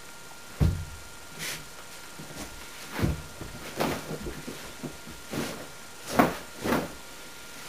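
A series of about seven irregular knocks and thumps, several seconds apart, like objects or doors being knocked and handled, over a faint steady tone.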